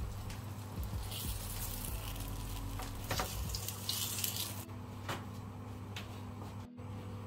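Freshly fried, breaded eggplant slices sizzling in their hot oil as they are laid on paper towels, in two stretches of hiss, about a second in and about three seconds in. A steady low hum runs underneath.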